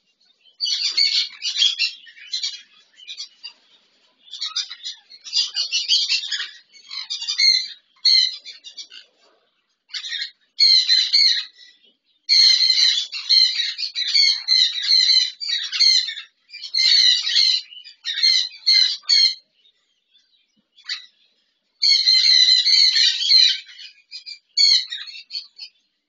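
Sun conures screeching: harsh, shrill parrot calls in clusters of a second or two, starting and stopping with short pauses between them.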